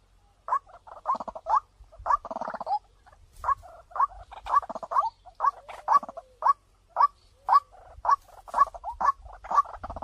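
White-breasted waterhen calling, played as a decoy call to lure waterhens. It starts with a burst of fast chattering, then settles into a run of short, sharp rising notes about two a second.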